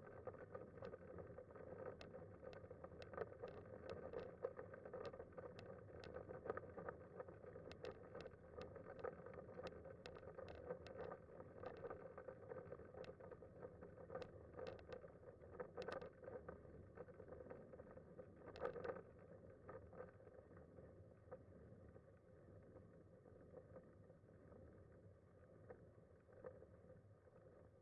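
Manual wheelchair with a FreeWheel front-wheel attachment rolling on asphalt: a quiet steady rolling noise with frequent sharp clicks and rattles. The clicks thin out and the sound drops a little after about twenty seconds.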